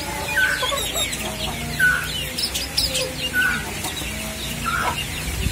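Birds calling: a short clear note repeats about every second and a half over quick, high chirping.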